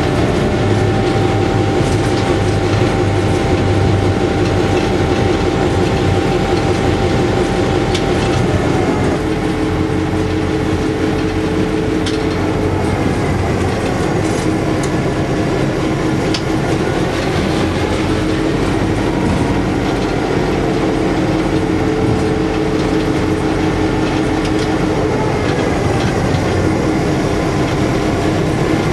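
Inside the cab of an EMD FP7 diesel locomotive under way: its 567 two-stroke diesel runs steadily over the noise of the wheels on the rails. The engine's tone shifts about eight or nine seconds in.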